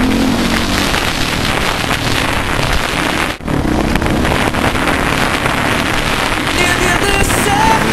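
Dirt bike running hard with loud wind rush on a helmet-mounted camera microphone, a dense steady noise. There is a brief dropout about three and a half seconds in.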